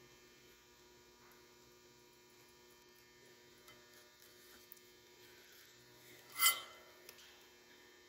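Steady low electrical mains hum with faint handling noises as bare wire strands are twisted together. About six and a half seconds in comes one brief louder scraping rub.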